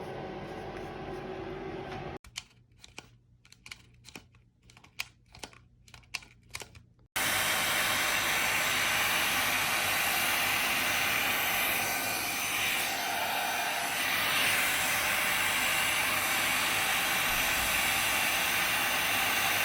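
A few sharp clicks of handling, then a hot air brush blowing: a loud, steady rush of air that starts abruptly about seven seconds in and holds steady.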